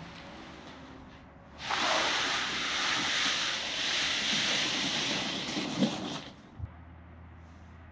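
A large flatbed tarp being dragged off the load and sliding to the ground: a loud rustling swish lasting about four and a half seconds, with a thump near the end as it drops onto the pavement.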